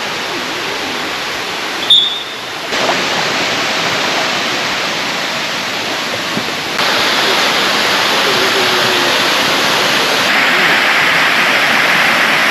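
Erawan Waterfall's cascade rushing steadily, a loud even wash of falling water. The loudness jumps abruptly several times. A brief sharp sound comes about two seconds in.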